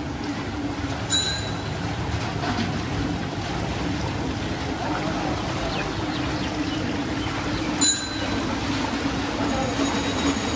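Heavy rain pouring down on a waterlogged street, under a steady low engine hum of traffic. Two short sharp high-pitched sounds cut through, about a second in and again near the end, the second the loudest.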